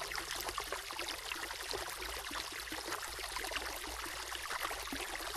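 Running river water, a steady babbling.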